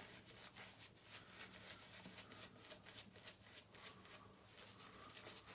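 Faint, quick, scratchy rustling of a shaving brush working lather onto the face, over a low steady hum.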